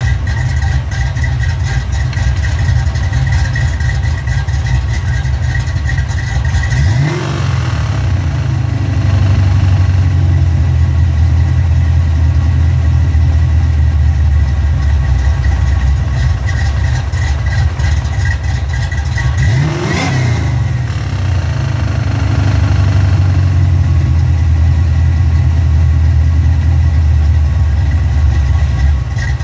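1990 Ford Mustang 5.0's V8 idling with a steady high whine from the clutch area, which the owner takes for a bad throwout bearing. The engine is revved briefly twice, about a quarter of the way in and again about two-thirds in. The whine fades between the revs and returns near the end.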